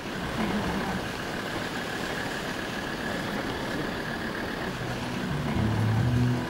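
Vehicle driving along a snowy road, with steady engine and road noise. Low music notes come in about five seconds in.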